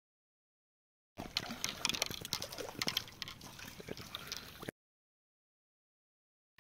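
Water splashing and sloshing as a hooked fish thrashes in a landing net at the surface, starting about a second in and stopping abruptly.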